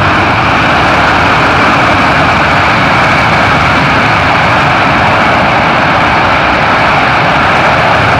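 Four turbofan engines of a C-17 Globemaster III running loud and steady in reverse thrust as the transport slows on the runway, with a faint high whine over the jet noise.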